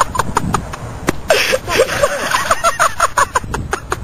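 A person laughing in quick repeated bursts, loudest in the middle, with scattered sharp clicks and knocks.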